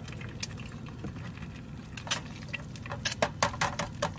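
An egg frying in oil in a pan on a butane burner, a steady sizzle with scattered pops and crackles that come thicker in the second half.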